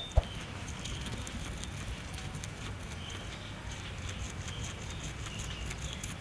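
Guinea pig chewing fresh green grass: rapid, rhythmic crisp crunching over a steady low rumble. A short sharp click right at the start.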